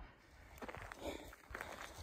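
Footsteps walking on a dirt and gravel trail, a string of irregular faint steps.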